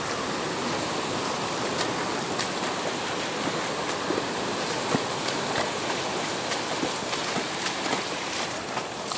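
Sea surf washing and rushing over a rocky reef shore, a steady hiss of moving water, with a few light clicks.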